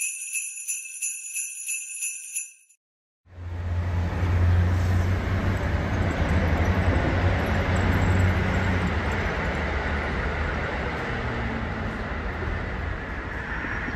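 A rhythmic bell-like chime jingle for about two and a half seconds. After a short gap, a KiHa 85 diesel express train runs past on a viaduct: a steady rumble over a low engine drone, easing slowly toward the end.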